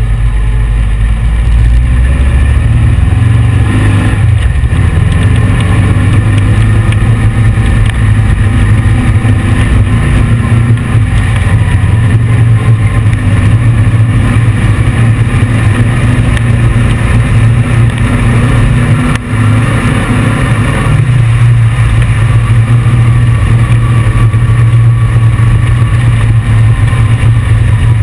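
Dune buggy's 1835 cc air-cooled VW flat-four engine running steadily under load at cruising speed, loud and close. A short dip in level about two-thirds of the way through.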